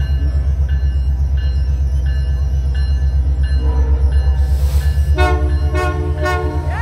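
Holiday Train's diesel locomotive pulling in with a steady low engine rumble, its bell ringing about one and a half times a second. A short horn chord sounds a little past halfway, then three quick horn blasts near the end.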